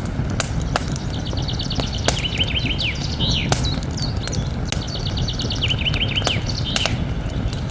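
Campfire crackling, with sharp pops over a steady low rush, while a songbird sings the same phrase twice: a fast run of repeated notes that steps down in pitch and ends in a flourish.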